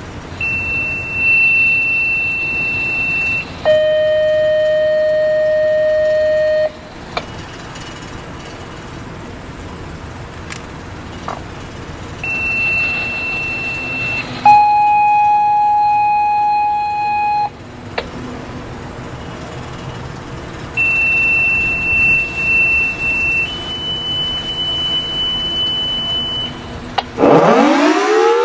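Sequential radio activation tones: three pairs of steady beeps, each tone held about three seconds, with a faint hiss between the pairs. Near the end the Federal Thunderbolt 1003 siren starts winding up, its pitch rising.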